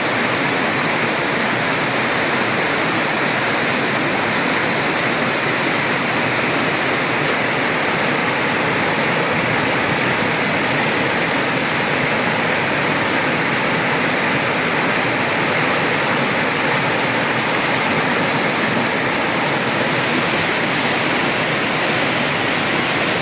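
Waterfall: a steady, loud rush of falling water with no break.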